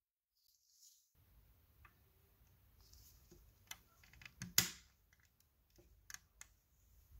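Faint clicks and taps of small plastic and metal parts as gloved fingers handle a scale model car, with the loudest click about halfway through.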